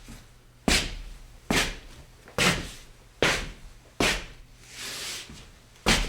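Scuffing on stone: a series of about seven gritty scrapes, roughly one every 0.8 s. Each starts sharply and fades quickly, with one softer, longer scrape near the end.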